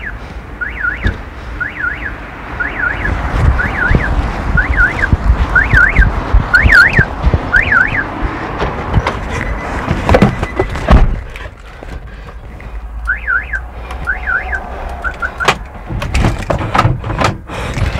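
Car alarm sounding its repeating up-and-down warble about once a second, set off as the parked car is being tampered with, over the noise of passing road traffic. It falls silent about halfway through, returns for a few cycles, then cuts off; a few sharp knocks come in between.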